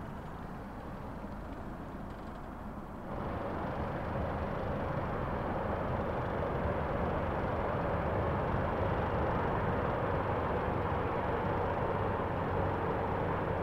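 Sailboat's inboard diesel engine running steadily while the anchor is being set, getting louder about three seconds in.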